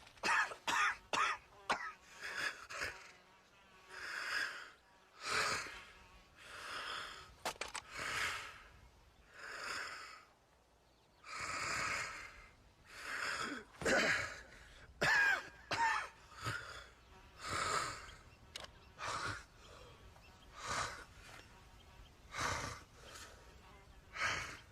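A person's pained grunts, coughs and ragged gasping breaths, the sound of someone who has just been shot. It comes as a long series of separate short, breathy bursts with brief pauses between them.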